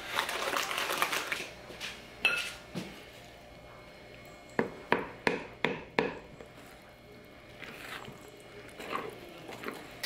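Metal spoon stirring brownie batter in a glass mixing bowl, with a quick run of about five sharp clinks against the glass near the middle.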